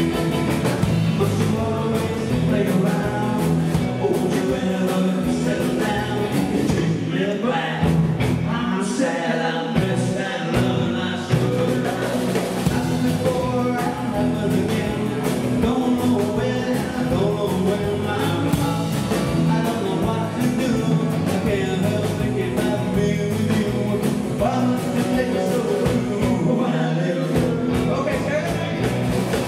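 Live rock and roll band playing: electric guitars, bass and drum kit at full volume, with a man singing into the microphone.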